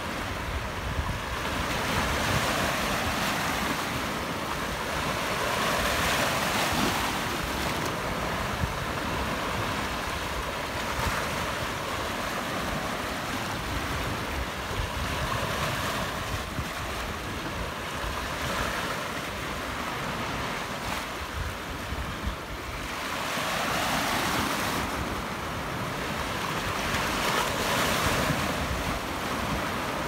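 Small sea waves breaking and washing over a flat rock shelf, the surf swelling and fading every several seconds. Wind buffets the microphone with a low rumble.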